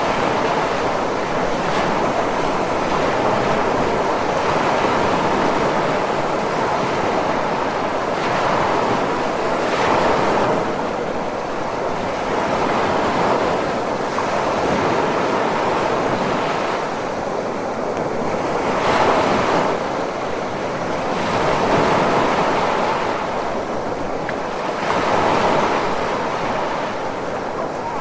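Ocean surf: a steady rush of breaking waves that swells and eases every few seconds.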